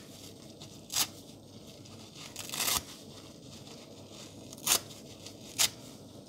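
A soap-coated sponge being ripped apart by hand in short, crispy tears. There are four rips: one about a second in, a longer drawn-out one in the middle, and two sharp ones near the end.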